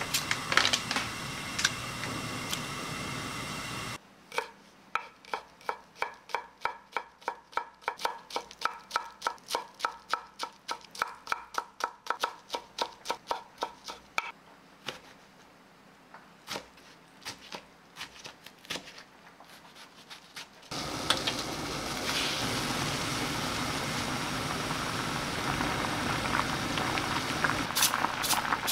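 Kitchen knife chopping green onions on a wooden cutting board: quick, even strikes, about three a second, for about ten seconds, then a few scattered cuts. Before the chopping there is a few seconds of steady rushing noise. After it, a pot of kimchi bean-sprout soup boils on the gas hob with a steady bubbling hiss.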